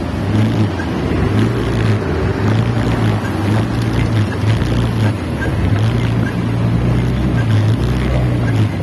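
Motorcycle engine running steadily at low speed in traffic, a constant low hum, with wind noise on the microphone.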